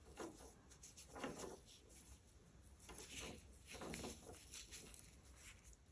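Near silence: room tone with a few faint, soft, short sounds spread through it.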